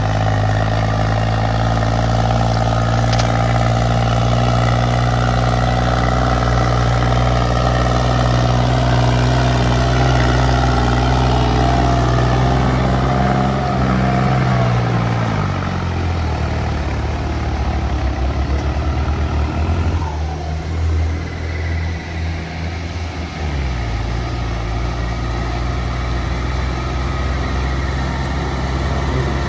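New Holland tractor's diesel engine pulling a heavily loaded wheat trailer. It runs steadily at high revs, then drops in pitch about fourteen seconds in as it lugs under the load climbing a bank, and picks back up about nine seconds later.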